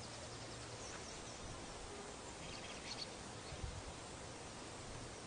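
Steady outdoor background noise with a few faint high chirps about halfway through, and a couple of soft knocks.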